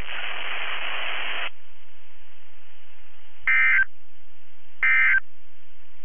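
Weather radio audio: a burst of hiss-like static for about a second and a half, then two short, loud warbling data bursts a little over a second apart. These are the EAS/SAME End-of-Message tones that close the weekly test.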